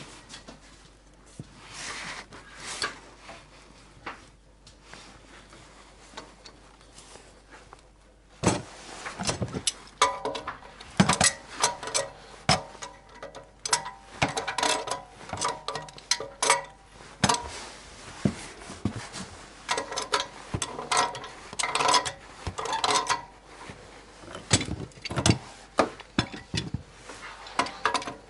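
Irregular clinking, knocking and scraping of metal tools and parts during plumbing work. It is sparse and soft at first, then turns into a dense clatter of sharp knocks, some with a short ring, from about a third of the way in.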